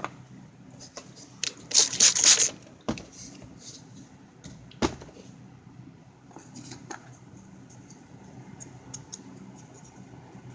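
Handling noise: a loud rustling scrape about two seconds in, then a sharp knock a second later and another near the middle, with scattered light ticks over a steady low hum.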